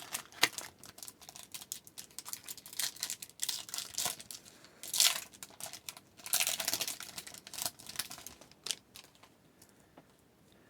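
A hockey card pack's wrapper being torn open and crinkled, with irregular crackles and rustles, loudest about halfway through. The cards are then handled, and it quiets near the end.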